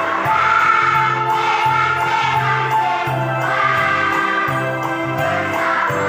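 Children's choir singing a Christmas song in unison over instrumental accompaniment with a steady bass beat.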